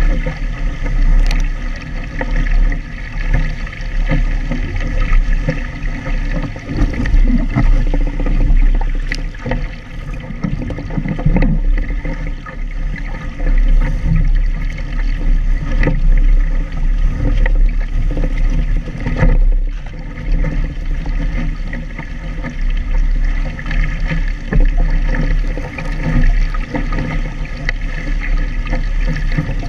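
Phantom sailing dinghy moving fast through choppy water: water rushing and splashing along the hull, under heavy wind rumble on the microphone that swells and eases with the gusts.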